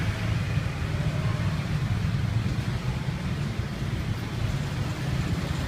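Street ambience: a steady low rumble of traffic with a faint hiss of background noise, no single event standing out.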